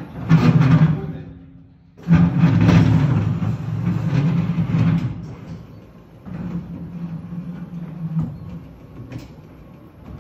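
Retractable telescopic bleacher rows rolling out on their wheels across a concrete floor, a heavy rumble that comes in three pushes: a short one at the start, a longer one from about two seconds in, and a third near the end.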